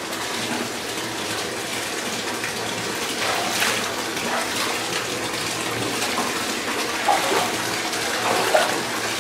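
Bath tap running steadily, water pouring into a shallow-filled bathtub.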